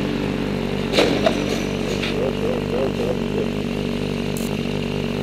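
Motorcycle engine idling steadily, with a short sharp sound about a second in.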